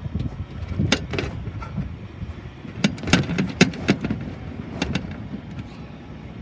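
A ladder being moved back, knocking and clanking several times, over a steady low rumble.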